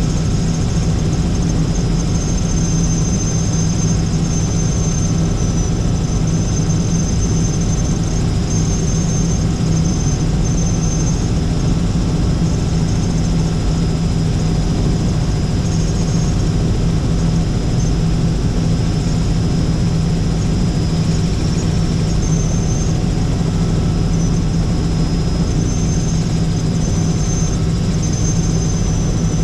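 Helicopter in flight heard from inside the cabin: a steady, loud rotor and engine drone with a thin high whine that comes and goes.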